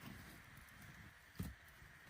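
Very quiet winter ambience: a faint steady hiss and low rumble, with one dull thump about one and a half seconds in.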